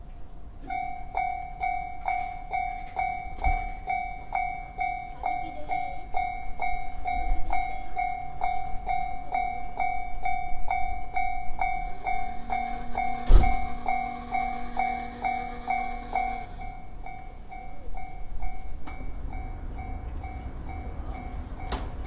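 Japanese level-crossing alarm bell ringing a steady two-tone clang, a little over two strokes a second, as the crossing activates and the barriers lower. About thirteen seconds in there is a single sharp knock, and a low steady hum lasts about four seconds.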